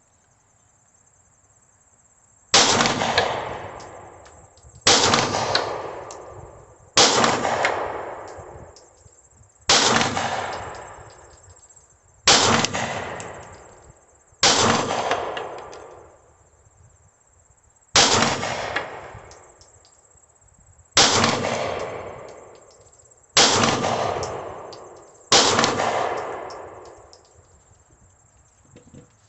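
Taurus G3 9mm pistol firing ten single shots, spaced about two to three seconds apart, each followed by a long echoing tail. The rounds are 115-grain ball ammunition.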